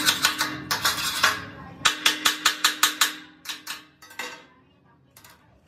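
Steel chipping hammer rapping on a welded steel air compressor tank, knocking slag off fresh welds around a fitting: quick sharp metallic strikes about five a second, with a faint ringing from the tank. The strikes pause briefly after about a second, start again, then slow and thin out, with a last light tap near the end.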